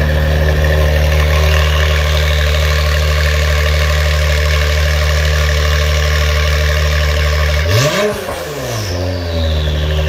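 2017 Acura NSX's twin-turbo V6 running through a stainless Armytrix valvetronic exhaust, idling steadily, then one sharp rev blip near the end that climbs and falls back to idle within about a second.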